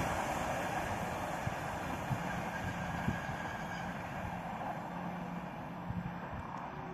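Passenger train that has just run through at speed receding into the distance, its rumble fading steadily, with a few faint sharp knocks along the way.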